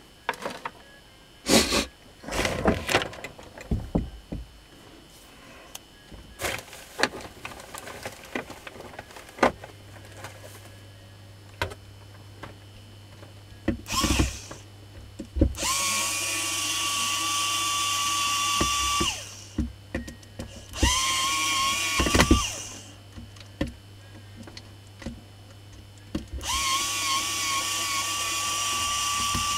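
Handheld corded electric drill running in three bursts of a few seconds each, a steady whine that rises as it spins up. Before that come clicks and knocks of parts being handled on a metal bench.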